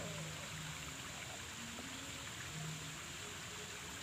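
Faint water trickling and lapping around a hand held in a shallow muddy paddy puddle, over a steady outdoor hiss.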